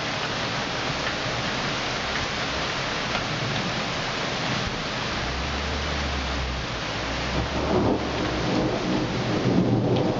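Thunderstorm: rain falling steadily, with thunder rumbling low from about halfway through and growing louder near the end.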